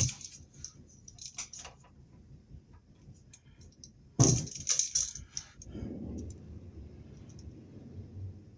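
Hand wire strippers stripping 14-gauge copper conductors: two sharp snaps about four seconds apart as the insulation is pulled off, with light metallic clicking and rattling of the tool between, then soft handling noise.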